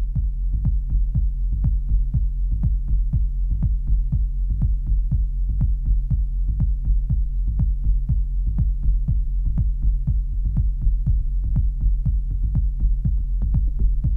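Minimal techno played live on hardware drum sampler and synthesizers: a steady deep bass line under a fast, even drum-machine pattern, about four or five hits a second.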